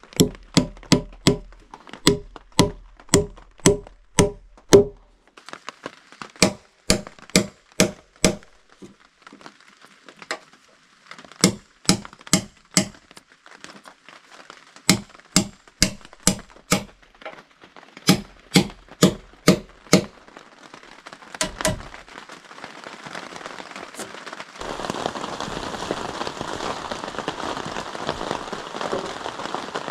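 Repeated hammer blows on wood, about two to three a second, in runs of eight to ten strikes with short pauses between. About three-quarters of the way through they give way to steady rain.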